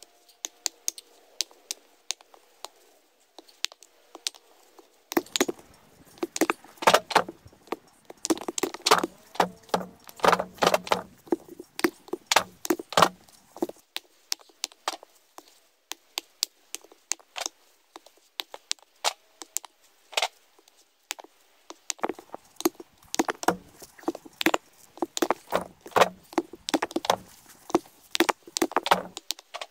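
Rapid sharp clicks and knocks in two busy spells, with scattered single ones between.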